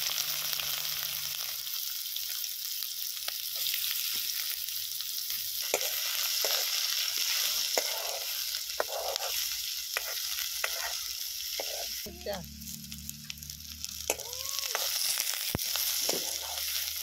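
Chopped onions sizzling in hot oil in a metal kadai, with a steady frying hiss. A steel spoon stirring them scrapes and clinks against the pan.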